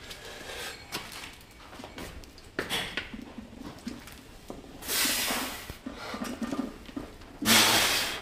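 Forceful, hissing breaths: three sharp exhales, the last the longest and loudest.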